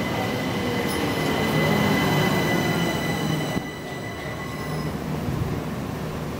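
Southern electric multiple unit slowing as it runs into the platform close by: rumbling carriages, a motor tone falling in pitch and a steady high whine that dies away about four seconds in.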